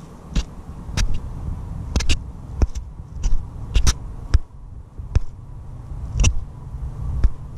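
Scattered sharp clicks and light knocks, a dozen or so at uneven intervals, over a low steady rumble.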